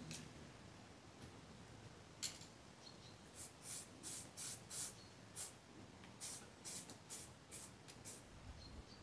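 Aerosol spray paint can sprayed in a quick series of short hissing bursts, starting about two seconds in, as steel C-section beam is painted.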